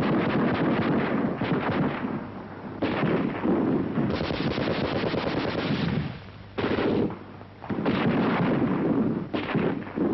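Machine-gun fire in long strings of rapid shots. The bursts are broken by short pauses about two, six and seven seconds in.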